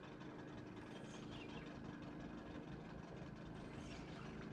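Faint, steady low hum of an engine running at idle.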